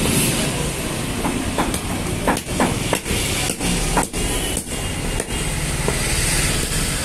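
A large knife scraping and knocking against a tilapia and the log chopping block as the fish is scaled and cut: a string of irregular sharp scrapes and knocks, about two a second, over steady background noise.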